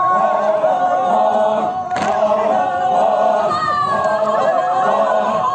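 A group of voices singing together without instruments, with long held notes: a traditional Sümi Naga dance chant.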